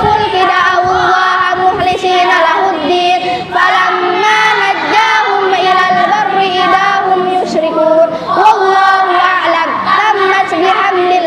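A group of children chanting together in unison, a melodic sung recitation with drawn-out, gliding notes.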